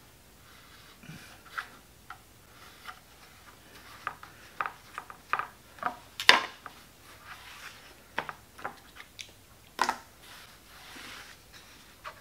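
Scattered taps, clicks and short scrapes of a steel knife and a leather belt strip being worked and handled on a wooden board on a metal machine table. A sharper knock comes about six seconds in, and another near ten seconds.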